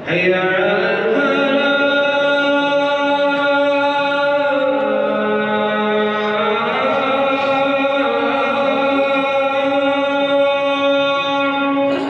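A man's voice chanting the call to prayer (adhan) in long, slow, held notes. The pitch steps down about four and a half seconds in and climbs back up near seven seconds; the call starts and cuts off suddenly.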